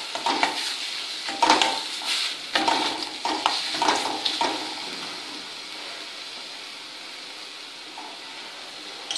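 A flat spatula scraping and stirring ground amla paste around a stainless steel kadai, sautéing it in oil until the raw smell cooks off. Quick strokes, about two a second, over a frying sizzle, then about halfway through the strokes stop and only a steady sizzle is left.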